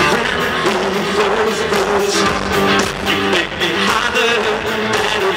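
A live rock band playing loudly, with electric bass and guitars over a steady beat.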